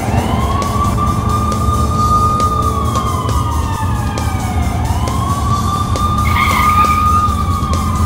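Police car siren wailing, its pitch slowly rising, holding and falling twice, over a steady low rumble.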